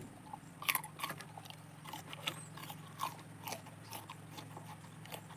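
A person chewing tamarind pulp: irregular short mouth clicks, strongest in a cluster about a second in and fainter after that.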